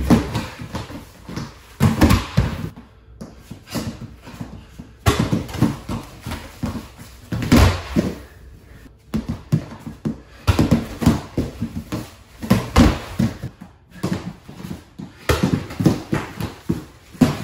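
Feet stepping and shuffling on a foam wrestling mat, with irregular thuds and slaps as a wrestler and a grappling dummy go down onto the mat during repeated throws. A handful of the impacts stand out as much louder than the rest, and the room gives them a slight echo.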